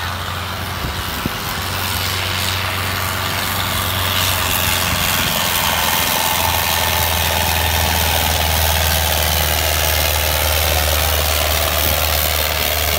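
Preet 6049 tractor's diesel engine running hard under heavy load as it drags a 12×12 disc harrow through ploughed soil. The engine grows louder about four seconds in as the tractor comes past, then holds steady.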